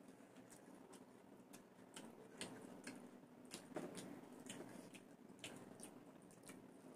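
Faint eating sounds: scattered soft clicks and smacks of chewing, with fingers working rice on a plate.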